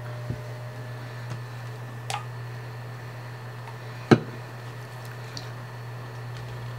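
A few light clicks and one sharper knock about four seconds in, from small objects such as hair product containers being handled and set down, over a steady low hum.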